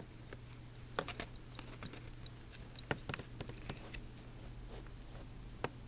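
Light, scattered clicks and taps of small tools, wires and parts being handled while a battery's leads are soldered onto a circuit board, over a steady low hum.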